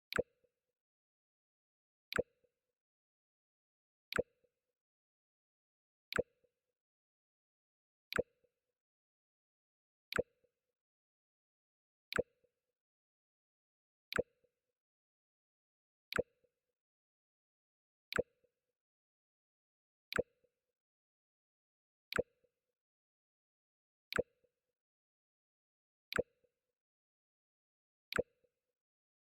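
Mac OS X 'Jump' sound effect: a short, sharp click with a fainter tick after it, played over and over about every two seconds.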